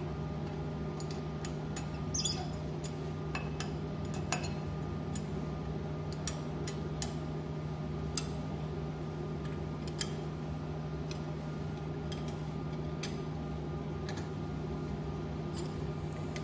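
Light metallic clicks and ticks of an Allen key fitting into and turning the locking bolts on an ultrasonic welder's head, scattered irregularly over a steady low electrical hum.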